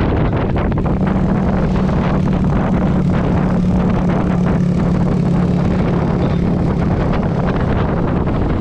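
Steady engine hum of a road vehicle under way, holding one pitch for most of the stretch and fading near the end, under heavy wind noise on the microphone.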